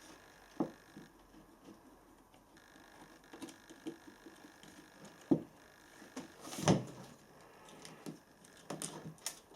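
Scattered light clicks and knocks of hard plastic and metal parts being handled as an angle grinder is taken apart, the loudest a knock about two-thirds of the way through.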